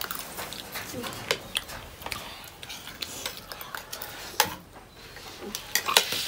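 Spoons clicking and scraping against plates as several people eat, in many small irregular clicks.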